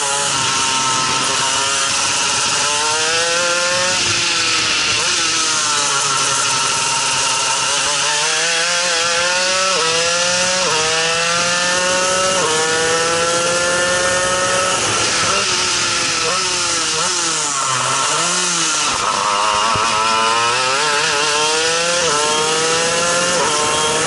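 A shifter kart's 125cc two-stroke engine is run hard, its high-pitched note climbing with the revs and dropping sharply at each upshift. In the middle it falls and wavers through the downshifts under braking, then climbs and shifts up again near the end.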